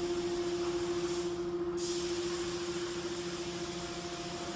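Double-head CNC wood lathe running: a steady motor whine over a hiss. The higher hiss fades about a second in and comes back sharply near two seconds in.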